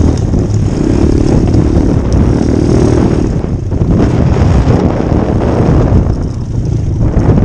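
Pit bike's small single-cylinder engine running under throttle on a rough off-road trail, the revs rising and falling. The engine note drops away briefly about three and a half seconds in and again around six seconds, as the throttle is eased off.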